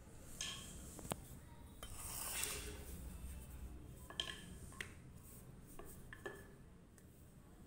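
Faint handling of maida dough on a marble counter with a wooden rolling pin: a soft rub about two seconds in and a handful of light, sharp clicks and clinks spread through the rest.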